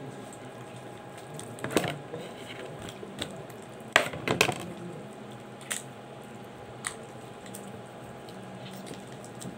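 Hands working raw chicken flesh and skin off the carcass in deboning a whole chicken: soft wet handling noise with a few short sharp clicks, the loudest pair about four seconds in.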